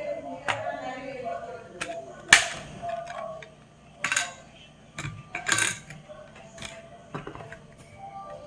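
Packaging for an NVMe drive being opened and handled: a string of sharp clicks and snaps with light rustling between, the loudest snap about two seconds in.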